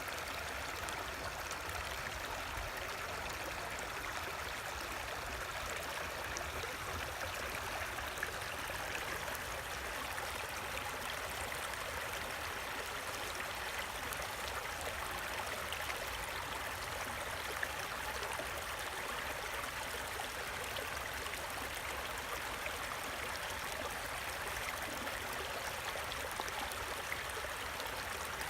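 Creek water running: a steady, unbroken rush.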